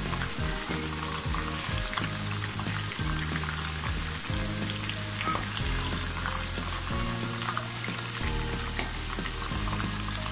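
Batter-coated chicken pakoras deep-frying in hot oil with a steady crackling sizzle, while a wire-mesh skimmer turns them over in the wok.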